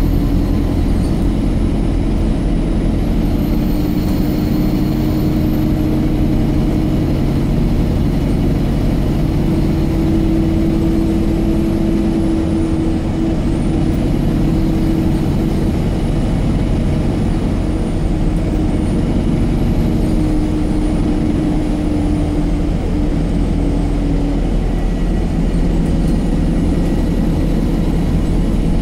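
Alexander Dennis Enviro 200 MMC single-deck bus heard from inside the passenger cabin while it drives: the diesel engine runs under steady road and body noise. The engine note shifts a little in pitch as the bus changes speed.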